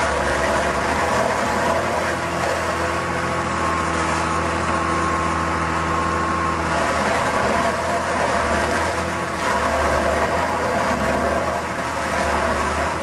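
Compact tractor's diesel engine running steadily while driving a stump grinder. Some of its higher tones drop out about seven seconds in.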